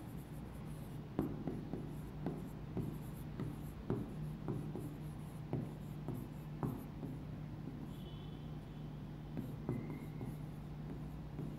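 Handwriting on a board: faint, irregular taps and scratches of the writing tip as words are written, over a steady low hum.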